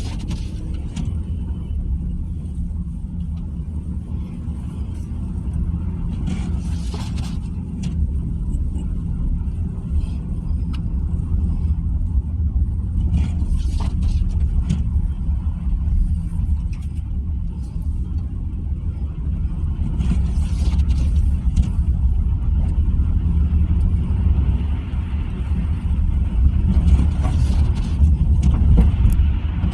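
Car engine and road noise heard from inside the cabin while driving slowly on a snow-covered road: a steady low rumble that grows a little louder near the end, with a brief hissy swish about every seven seconds.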